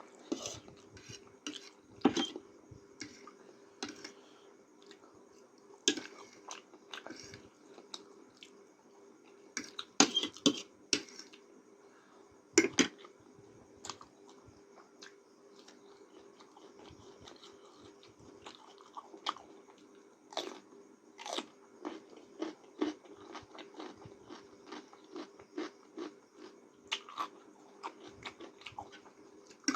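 A person eating noodles close to the microphone: chewing with irregular wet mouth clicks and smacks, a few of them louder, over a faint steady hum.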